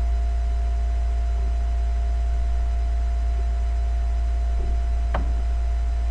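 Steady low electrical mains hum with a faint steady higher tone and hiss over it, picked up in the recording chain; one faint short click about five seconds in.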